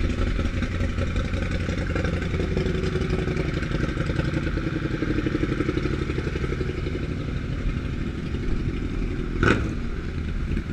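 Motorcycle engine idling steadily with a fast even beat, with one sharp clunk about nine and a half seconds in.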